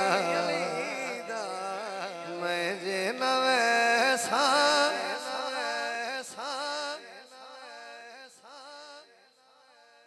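Male voice singing a drawn-out, ornamented line of a Punjabi devotional kalam, with music behind it, dying down about seven seconds in.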